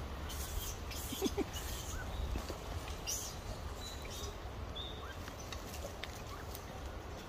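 Footsteps crackling and rustling in dry leaf litter, mostly in the first three seconds, with a low rumble of wind or handling on the microphone. A few faint short high chirps come around the middle.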